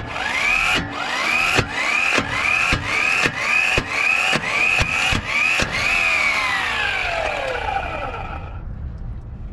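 Mplus impact wrench hammering on an axle nut, about two blows a second, its motor whine climbing between each blow. After about ten blows the motor winds down in a long falling whine that fades away.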